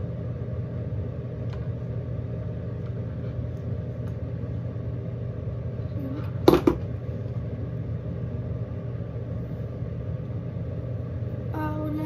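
Steady low mechanical hum, like a small motor running, with one sharp clack a little past halfway.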